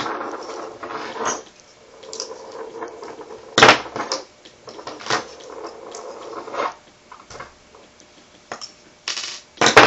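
Small steel parts of a Beretta PX4 pistol's hammer and sear assembly being worked by hand: scraping and clicking, with two sharp knocks, one a few seconds in and one near the end, as a pin is pushed out of the assembly.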